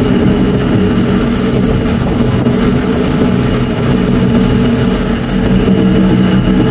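Passenger ship's engines running with a steady low drone and hum, heard from on board.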